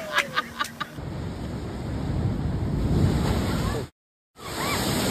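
Surf breaking and rushing up a beach, with wind buffeting the microphone. A quick run of short sharp sounds comes in the first second, and the surf noise cuts out abruptly near the end before another stretch of surf begins.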